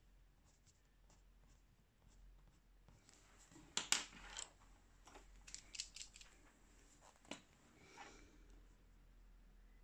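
Quiet room with a few faint handling clicks and rustles from pencils and paper at a colouring desk. The loudest is a quick cluster of sharp clicks about four seconds in, with smaller clicks over the next few seconds and a short rustle near the end.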